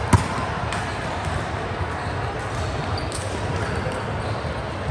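A volleyball struck hard once, just after the start, over a steady background din, followed by a few lighter knocks.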